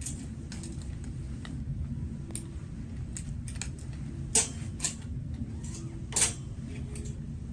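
Clothes hangers clicking and scraping along a metal garment rail as hanging abayas are pushed aside and one is pulled out: sharp, irregular clicks, the loudest about four and a half and six seconds in, over a low steady hum.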